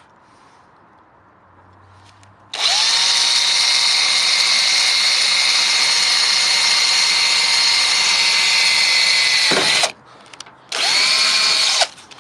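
Power drill boring a hole. It spins up with a rising whine, runs steadily for about seven seconds, winds down, then runs again for about a second near the end.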